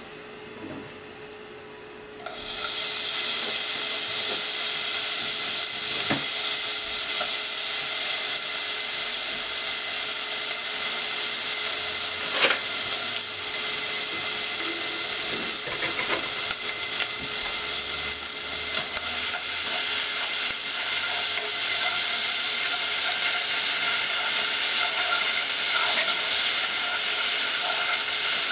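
Cut bacon sizzling in a non-stick pot, a loud steady hiss that starts suddenly about two seconds in, with a few short knocks and stirring sounds from chopsticks on the pot.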